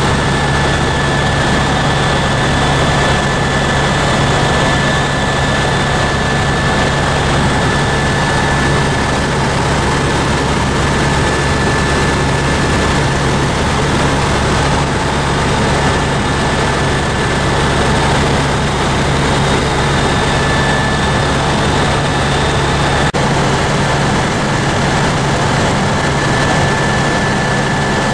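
Tour helicopter in flight, heard from inside the cabin: the turbine engine and rotor give a loud, steady drone with a low hum and a constant high whine.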